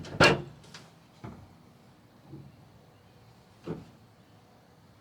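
Van doors being opened: a loud clunk of a door just after the start, then fainter knocks, one about a second in and one near the end.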